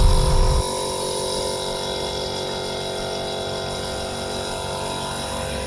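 Foam generator's compressor and water pump running with a steady mechanical hum; a louder low rumble cuts off about half a second in.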